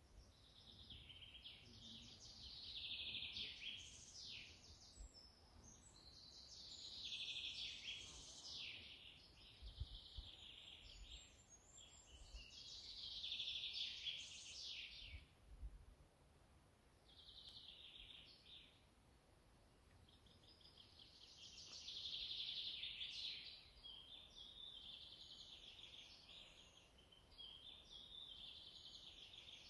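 Faint bird chirping and song in a run of phrases a few seconds long that swell and fade, with short pauses between them.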